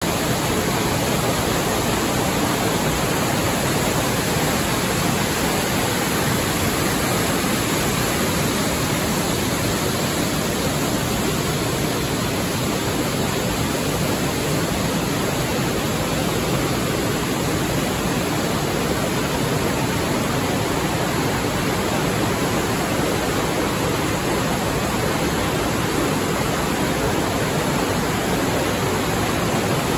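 Silty glacial meltwater river rushing in white-water rapids over rocks, a steady, loud roar of water.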